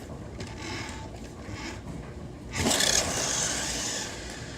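Remote-control toy car's wheels scraping across the floor, turning suddenly louder a little past halfway and easing off about a second and a half later.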